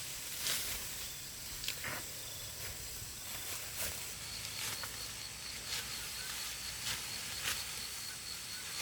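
Rice stalks being cut by hand with a sickle: short, sharp rasping swishes at uneven intervals of about a second, over a steady outdoor hiss.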